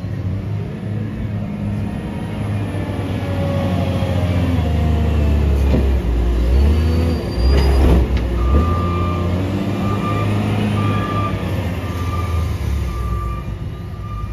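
Wheel loader's diesel engine working hard as it carries a bucket of leaves to a rear-loader garbage truck and dumps it into the hopper, with a clank about eight seconds in. After that, the loader's backup alarm beeps steadily, a little more than once a second, as it reverses away.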